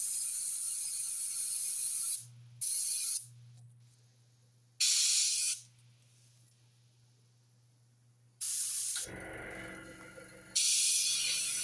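Airbrush spraying in short bursts, its hiss of air and paint stopping and starting several times as the trigger is worked. A lower mechanical running sound comes in about nine seconds in.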